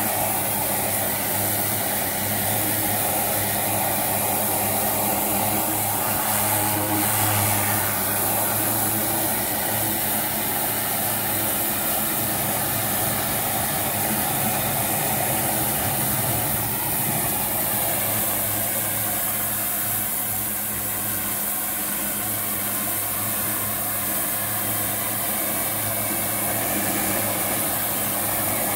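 High-pressure cleaner spraying a jet of water against brick: a steady hiss of the spray over the even hum of the machine's motor and pump.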